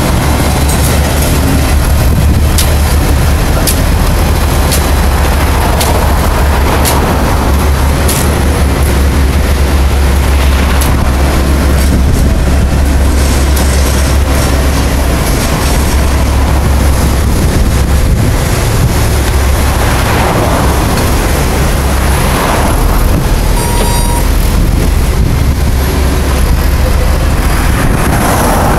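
Steady low rumble of a vehicle in motion, heard from inside it, with a few scattered clicks and rattles.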